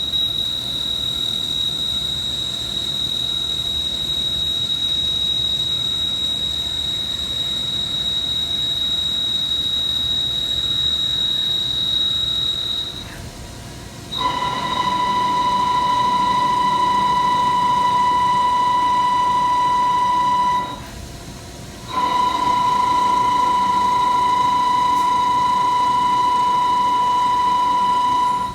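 Milling machine cutting metal, with the cutter squealing in a steady high pitch for about thirteen seconds. This is followed by two long, lower-pitched cutting passes with a brief pause between them.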